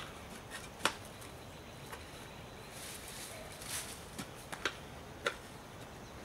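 Scattered clicks, scrapes and rustles of a hand tool working in soil and leaf litter at the edge of a concrete sidewalk, the sharpest click at the very start and a handful of lighter ones later.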